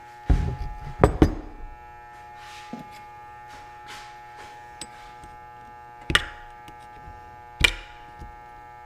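Aluminium fork-leg bottom and hand tools knocked and set down on a workbench: a few sharp clunks, just after the start, about a second in, about six seconds in and about seven and a half seconds in, with lighter taps between. A steady electrical hum runs underneath.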